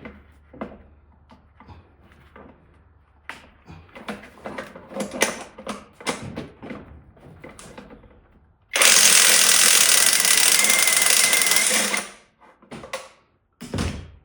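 Metal tools clicking and knocking against engine fasteners, then a power tool runs in one loud steady burst of about three seconds, undoing the intake manifold screws on a BMW E23 engine.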